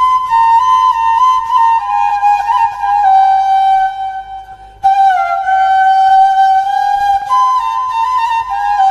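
Background music: a solo flute playing a slow, stepwise melody. It fades briefly about four seconds in, then comes back in suddenly.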